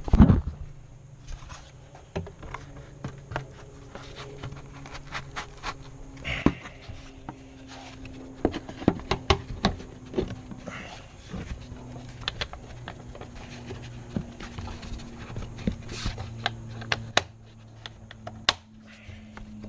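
A hard thump, then scattered plastic and metal clicks and knocks as a car's air intake duct and filter housing are fitted by hand and the metal hose clamp on the duct is tightened. A low steady hum runs underneath.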